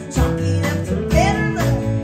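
Live country band music: acoustic and electric guitars playing with a steady bass line under a woman's singing voice.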